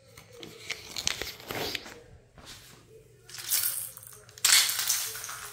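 A crinkling, rustling noise with small clicks, growing to two louder bursts about three and a half and four and a half seconds in.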